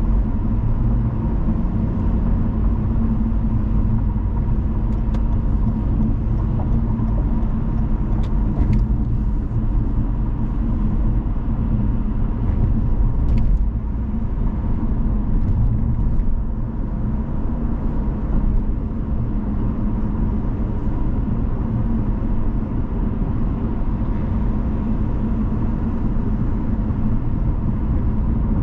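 A car driving on the road: a steady low rumble of engine and tyres, with a few faint ticks near the middle.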